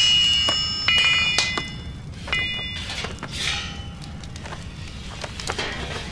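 Hammer striking metal, each blow ringing on with a clear metallic tone. Several loud strikes come in the first two seconds, then fainter, scattered taps.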